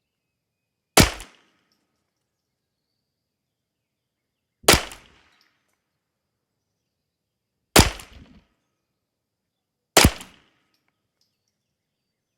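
Four single .22 LR rifle shots from a semi-automatic Kidd rimfire rifle firing Lapua Master L match ammunition. They are fired slowly and deliberately, two to four seconds apart, each a sharp crack with a short trailing echo.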